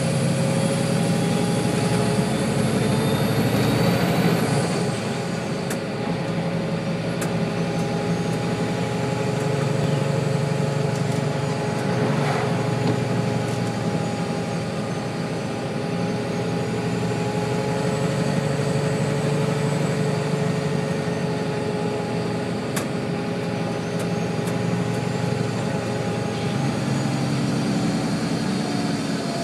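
Diesel engine and road noise of a loaded coal truck heard from inside the cab while it drives, running steadily. A high whine drops away about four seconds in, and there are a few sharp clicks.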